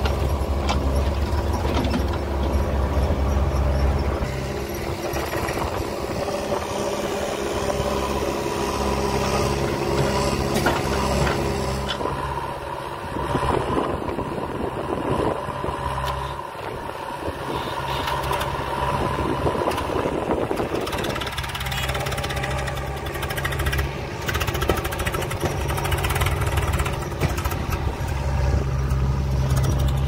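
Diesel engines of a JCB 3DX backhoe loader and a Swaraj 744 FE tractor running, the note shifting as the backhoe digs and loads soil, then settling back to a steady run in the last several seconds.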